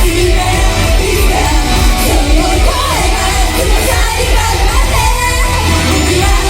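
Live J-pop idol song played loud over a hall PA with heavy bass, the group singing, mixed with yelled fan calls.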